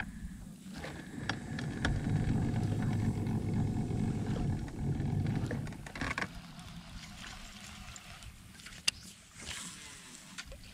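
A boat motor running with a low rumble and a faint steady whine as the boat moves along the bank, cutting off about six seconds in. After that come a few light clicks and a brief hiss of fishing tackle as a rod is readied to cast.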